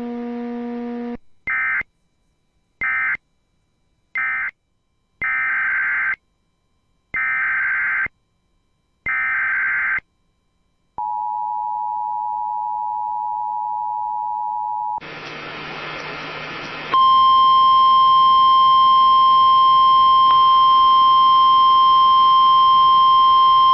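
Emergency alert radio signals. First come three short bursts of data noise, then three longer ones. A steady two-note attention tone sounds for about four seconds, then a short burst of static. From about 17 seconds a loud, steady NOAA Weather Radio warning alarm tone runs, announcing a tornado warning.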